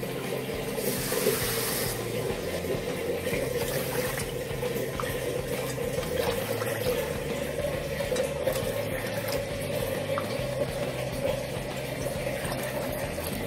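Water poured cup after cup from a jug into a plastic measuring cup and emptied into a non-stick kadhai over sugar, a steady pouring and splashing with louder splashes about a second in and again near four seconds.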